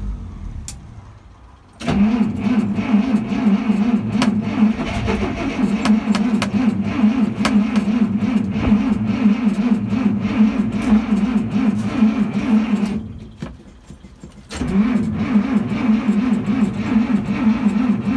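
Starter motor cranking a Dodge D300's slant-six engine with a fast, even churning rhythm: one long crank of about eleven seconds, a short pause, then cranking again near the end, without the engine catching.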